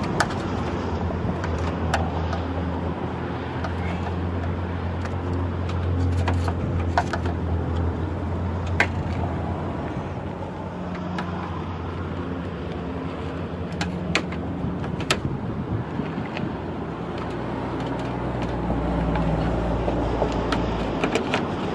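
Scattered sharp clicks and snaps of a flat pry tool working plastic push-pin rivets out of a car's front bumper cover, over a steady low rumble of vehicle traffic.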